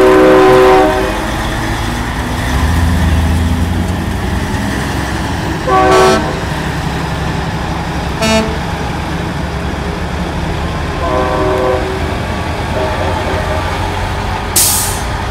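Semi-truck air horns blasting as big-rig tractors roll past, with diesel engine rumble between blasts. A loud chord of horn tones ends about a second in, short blasts follow twice, another horn sounds for about a second and a half later on, and a short hiss comes near the end.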